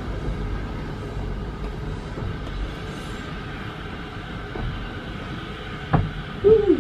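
Narrow-gauge railway carriage running along the track, a steady rumble of wheels on rails heard through an open carriage window. A single knock about six seconds in, and a brief voice just before the end.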